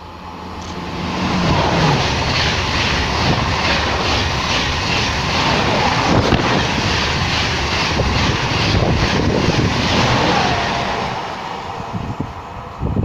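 SNCF TGV double-unit high-speed train passing through a station without stopping. It swells up over the first second or so into a loud rushing run with an even, quick clatter of wheels over the rails, then fades away near the end.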